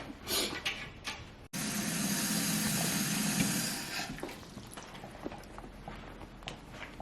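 Water running steadily from a kitchen tap, starting abruptly about a second and a half in and fading out a couple of seconds later, with small clicks and knocks of kitchenware around it.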